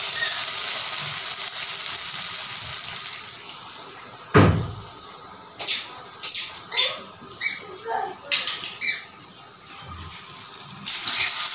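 Batter-coated potato chop sizzling in hot oil in a kadhai, the sizzle fading over the first few seconds. A thump about four seconds in, then a string of short soft sounds as the next chop is dipped by hand in the ground masoor-dal batter, and a fresh loud sizzle starts near the end as a chop goes into the oil.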